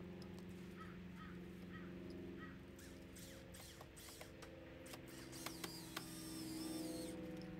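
Faint crows cawing, several short harsh calls, over a steady low hum, with a couple of light clicks about five and a half seconds in.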